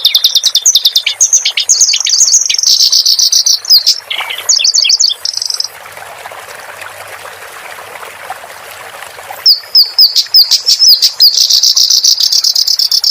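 A kerak basi (reed warbler) singing a fast, chattering string of high notes, with a steady hiss from the mixed-in water-therapy track beneath. The song breaks off for about four seconds in the middle, leaving only the water sound, then resumes.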